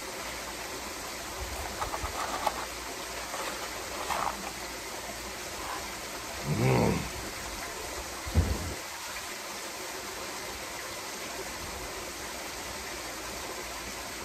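Steady splashing of water falling from a backyard pool's rock waterfall into the pool. A short low vocal sound, like a hum, comes about seven seconds in, and a low thump about a second and a half later.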